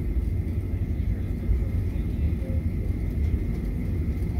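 Cabin noise of a Boeing 737-900ER taxiing: a steady low rumble from its CFM56-7B engines at taxi power and the rolling airframe, with a faint steady high tone over it.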